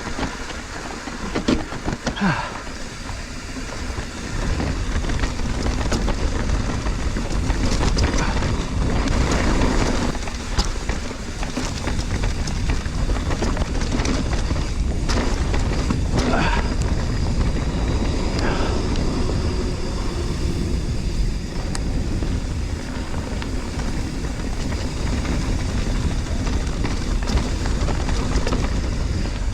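Mountain bike riding down a trail: wind rushing over the microphone as a steady low rumble, with tyres rolling over rough ground and the bike rattling in sharp clicks throughout.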